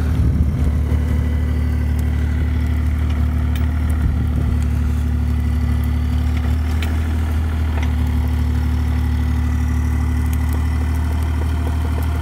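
An engine running at a steady idle, a low, even hum that does not change pitch, with a few faint knocks over it.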